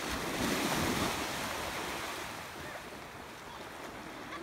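Small waves washing through shallow water at the beach, louder for about the first second, with wind rumbling on the microphone.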